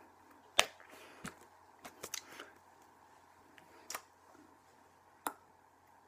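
Hands slapping and tapping together as a person signs in sign language: about eight short, sharp smacks scattered irregularly, the loudest about half a second in, over a faint steady hum.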